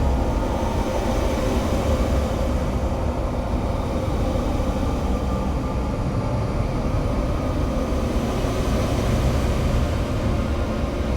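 Dense, steady rumbling drone in an experimental music track, heavy in the low end with a few faint held tones above it and no beat.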